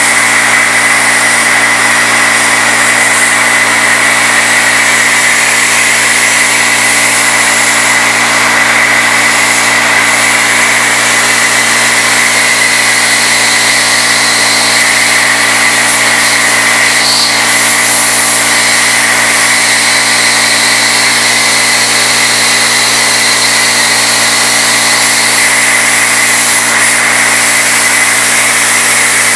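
CNC Bridgeport knee mill with a 3/8-inch end mill cutting aluminum, spindle at 2200 RPM: a steady, loud machining whine with a strong high tone.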